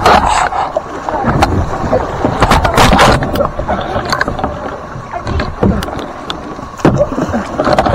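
Kayak paddling in fast-moving water: irregular splashes and sharp knocks of the paddle and hands against the kayak hull over rushing water.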